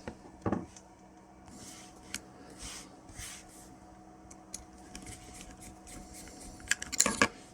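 Small screwdriver driving the tiny retaining screw back into the end of a combination padlock: faint metal scraping and scattered light clicks, with a louder click about half a second in and a quick cluster of clicks near the end.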